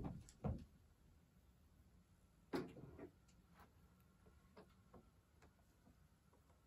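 Quiet room with a scattered series of light taps and clicks, the loudest about half a second in and about two and a half seconds in: the paws and claws of a cat and kittens on a woven rug and hardwood floor as they play.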